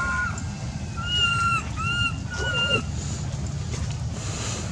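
Infant macaque giving four short, arched cooing cries in quick succession in the first three seconds, over a steady low rumble.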